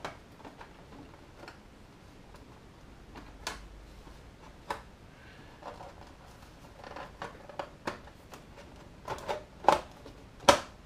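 Scattered clicks and knocks of a Heljan 7mm-scale Class 45 model locomotive's body shell being worked down over its chassis, a tight fit, with two louder knocks near the end.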